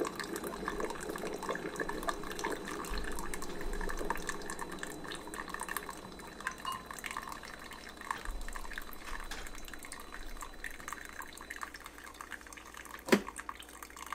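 Ninja Hot and Cold Brewed System trickling concentrated specialty-brew coffee into a glass cup, the stream thinning and fading as the brew finishes. One sharp click about thirteen seconds in.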